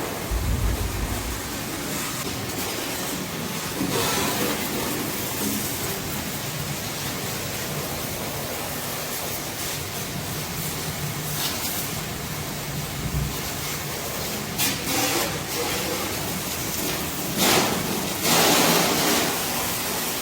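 Water spraying from a washing hose onto a tractor, a steady hiss with louder splashing near the end.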